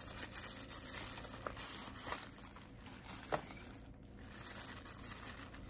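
Packaging crinkling and rustling as it is handled, with a few small knocks.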